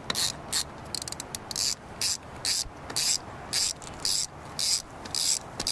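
Hand ratchet with an 8 mm Allen bit backing out the drain plug on an excavator final drive cover. Each back-swing gives a short burst of rattling pawl clicks, about two a second, with a quicker run of clicks about a second in.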